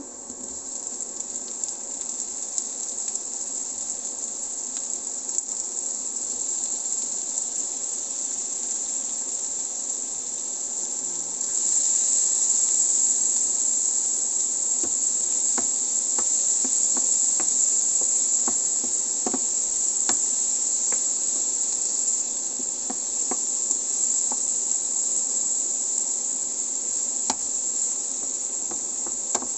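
Onions and diced tomatoes sizzling in butter in a nonstick frying pan: a steady high hiss that grows louder about a third of the way through. In the second half a wooden spatula stirring against the pan adds light scattered clicks.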